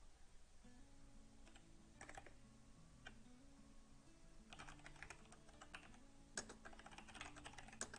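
Faint computer keyboard typing, with irregular runs of key clicks that come thicker in the second half.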